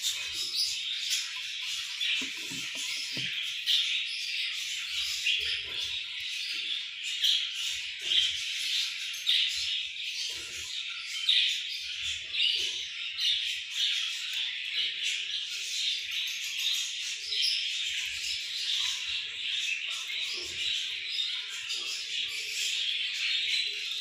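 Budgerigars chirping and chattering without pause, many birds at once, with occasional soft rustles.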